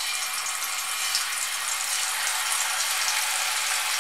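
Masala-coated chicken pieces deep-frying in hot oil in a kadai, a steady sizzle as the pieces go into the oil.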